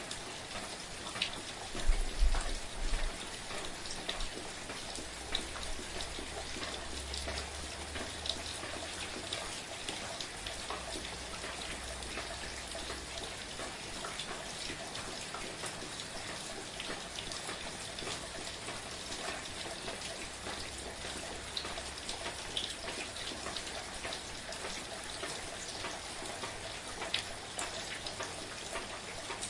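Steady gentle rain with many individual drops pattering and ticking on surfaces. A brief low rumble comes about two seconds in.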